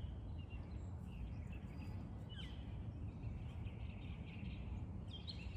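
Birds chirping faintly a few times over a steady low rumbling background noise.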